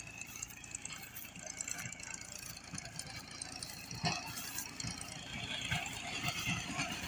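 Combine harvester running at a distance as it cuts standing wheat, a steady engine noise with scattered rattles. There is a knock about four seconds in.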